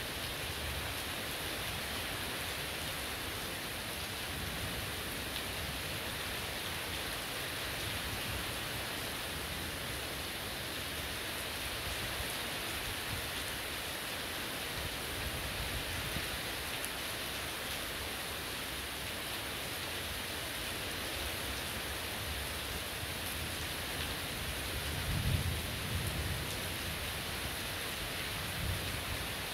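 Heavy rain falling steadily. A brief low rumble rises over it near the end.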